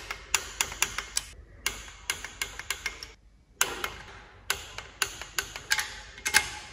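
Torque wrench ratchet clicking in quick runs as it tightens small bolts to a low torque, with two short pauses between the runs.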